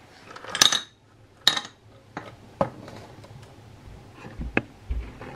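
Crockery and other items handled on a kitchen worktop: a string of short, sharp knocks and clinks, about seven in all, the loudest two in the first second and a half.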